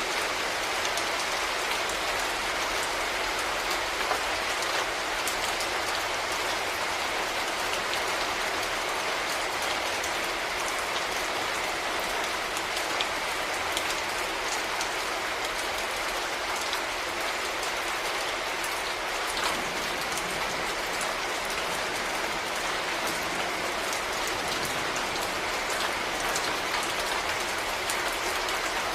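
Steady rain falling: an even hiss with scattered raindrop ticks.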